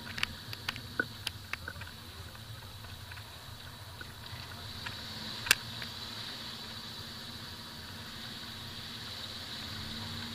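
Maruti Suzuki Vitara Brezza driving slowly over a rough dirt and gravel road, with a steady low engine and tyre rumble. Scattered sharp clicks and knocks come in the first two seconds, and one louder knock about five and a half seconds in.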